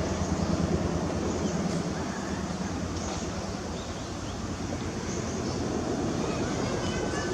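Steady low rumbling outdoor noise, with a few faint, short bird chirps.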